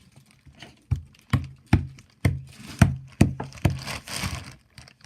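Slime being squeezed and pulled by hand, giving a run of about seven sharp pops roughly half a second apart, then a brief rustling squish near the end.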